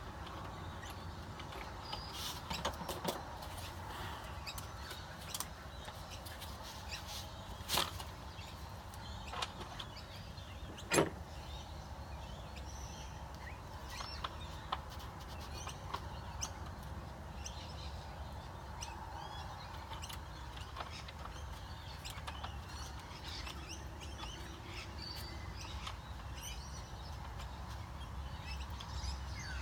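Scattered bird chirps over a low steady rumble, with a few sharp knocks; the loudest knocks come about 8 and 11 seconds in.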